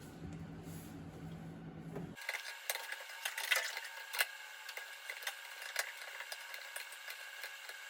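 Irregular light metallic clicks and clinks of tools and hardware being handled, a few sharper clicks standing out, with a thin sound from about two seconds in.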